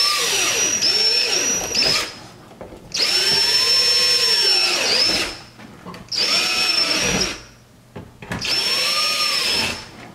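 Cordless drill with a 3/16-inch bit boring rivet holes up through a car's front splitter: four short runs of a second or two each, the motor's whine rising as it spins up and falling away as it stops.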